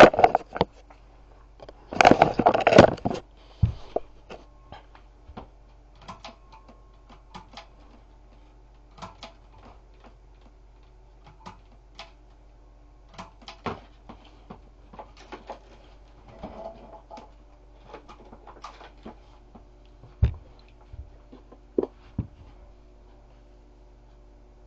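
Hunter Westminster ceiling fan running at high speed, as it does on every setting because of a blown capacitor, with a steady motor hum. Scattered light clicks and ticks run over it, with a louder clatter about two seconds in and two sharper knocks near the end.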